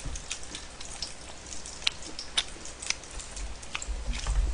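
Pork belly frying in a hot frying pan: the fat sizzles steadily with many sharp, irregular crackling pops of spitting grease.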